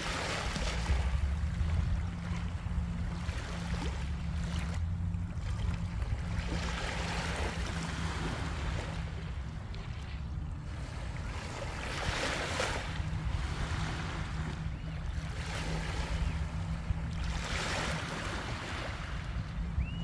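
Small sea waves washing up onto a pebble shore, a hissing surge every three seconds or so, over a low steady rumble of wind on the microphone.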